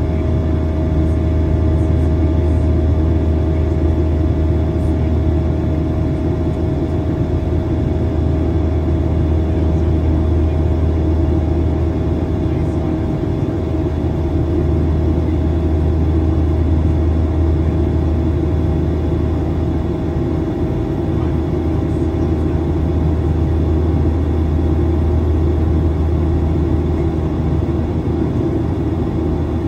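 Steady jet engine and airflow noise inside an airliner's passenger cabin during the climb after takeoff: a deep, even rumble with a few faint steady hum tones over it.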